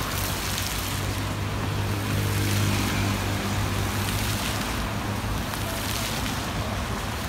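Fountain jets splashing into a shallow reflecting pool, a steady rush of water. A low steady hum runs under it for the first half and fades out a little after the middle.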